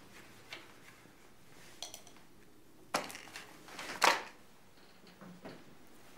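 Someone handling a metal cigarette lighter and cigarette after lighting up: a handful of short, sharp clicks and knocks, the loudest just after four seconds in.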